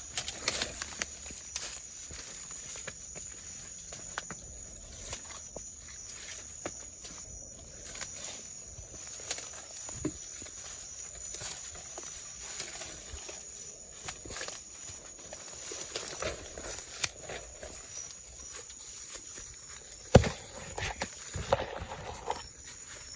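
Footsteps pushing through brush and bamboo, with irregular snaps and rustles and one loud knock about twenty seconds in. A steady high-pitched night-insect trill runs underneath.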